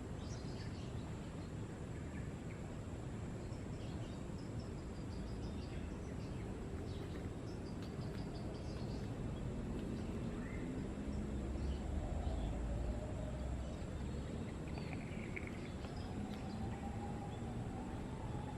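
Outdoor ambience: a steady low rumble with scattered faint chirps of small birds, and a faint, low, wavering call twice, about two-thirds of the way in and near the end.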